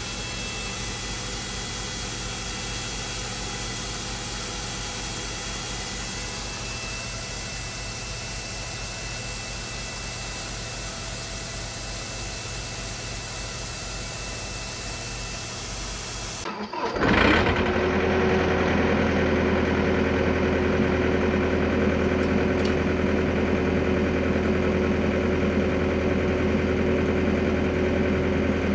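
Tractor engine running steadily. About seventeen seconds in, the sound switches abruptly to a louder engine-driven machine running with a steady hum.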